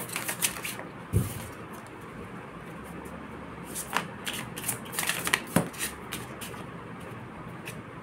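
A deck of tarot cards being shuffled and handled by hand: irregular soft flicks and snaps of the cards, with a dull thump about a second in.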